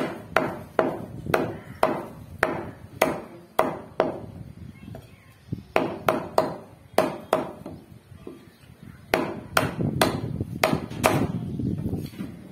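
Meat cleaver chopping goat meat into pieces on a wooden log chopping block: a series of sharp, hard chops, about two a second, with a brief pause about five seconds in and quicker chops near the end.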